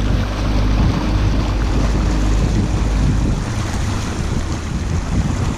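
Boat's outboard motor running steadily under way, with water rushing in the wake and wind buffeting the microphone.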